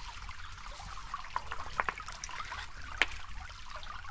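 Shallow stream trickling over stones, with a few small splashes and sharp clicks from hands groping among the stones of the streambed, the sharpest about three seconds in.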